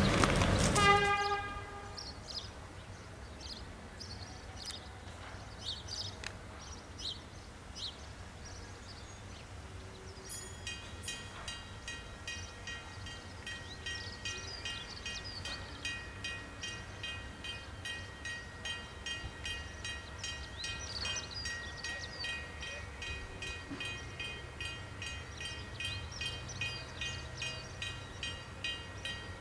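Level crossing warning bell ringing steadily at about two strikes a second, starting about ten seconds in, the signal that a train is approaching the crossing. A loud pitched sound cuts off within the first second.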